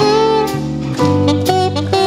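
Saxophone playing a melody of held notes over a backing accompaniment with a bass line.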